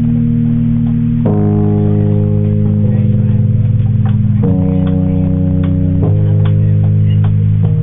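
A live band's guitar and bass hold sustained chords, changing chord three times.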